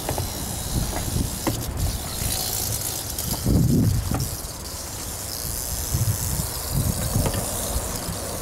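Wind buffeting the microphone in uneven gusts, strongest about three and a half seconds in, over a faint high hiss. A few light clicks and knocks come as a metal snake hook works inside a plastic trash can.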